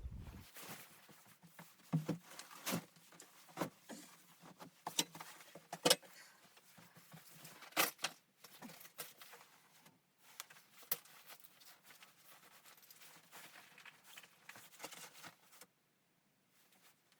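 A run of irregular sharp clicks and light knocks, some louder than others, that stops abruptly a little before the end.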